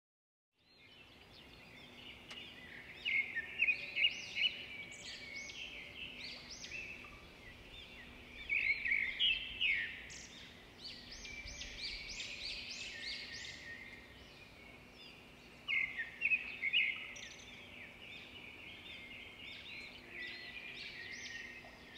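European robin singing: high, quick warbling phrases with short pauses, loudest in bursts about three, nine and sixteen seconds in, with softer song between.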